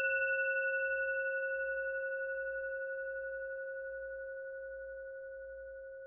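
Singing bowl ringing out after a single strike: one long, slightly wavering tone that slowly fades.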